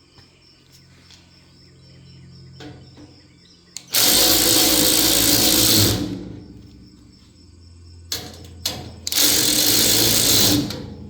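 Power driver backing out bolts from the cart frame's rivet nuts, in two runs of about two seconds and a second and a half, with a few small clicks between them.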